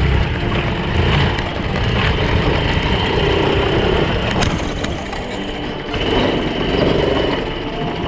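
ATV engine running steadily as the quad bike is ridden.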